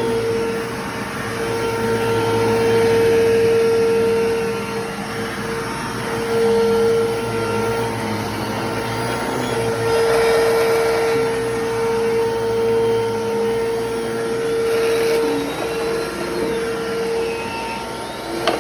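Bissell Lift-Off 3750-T bagless vacuum cleaner running while vacuuming, a steady motor whine over a rushing of air, its loudness swelling and easing every few seconds.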